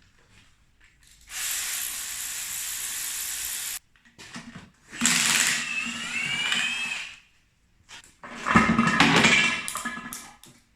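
A power tool run in three bursts of a few seconds each while a gearbox is being stripped: the first is a steady hiss that cuts off suddenly, the second carries a whine that rises in pitch, and the third is the loudest.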